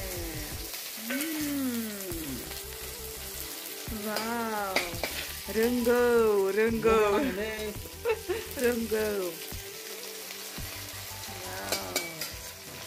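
Sliced onions sizzling in hot oil in a steel kadai, a steady hiss throughout. A sung or played melody rises and falls over it, loudest in the middle.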